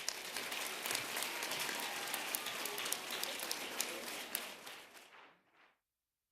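Audience applauding, with scattered claps fading out about five seconds in.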